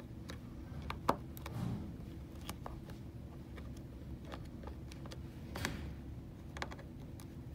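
Faint, scattered clicks and ticks of a small Torx driver turning tiny screws out of a Holter monitor's plastic case, with a couple of sharper clicks about a second in and just before six seconds. A steady low hum runs underneath.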